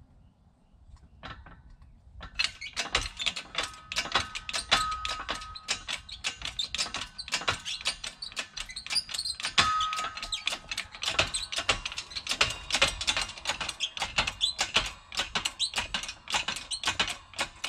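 Hydraulic bottle-jack shop press being pumped by its long handle to press a water pump mechanical seal into a Yamaha YFZ450R engine side case. Rapid metallic clicks and rattles start about two seconds in, with a couple of short squeaks.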